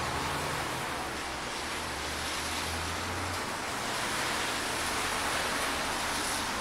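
Heavy rain falling steadily on a wet road, a constant hiss. Under it a vehicle's engine hums low for the first half, stopping about three and a half seconds in.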